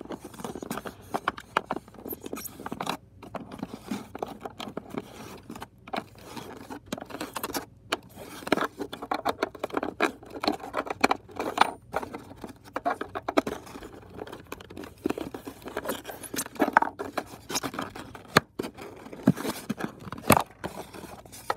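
A coin scraping, tapping and clicking against plastic and foam packaging in a steady run of small irregular scratches, as it is used to work a diecast car free.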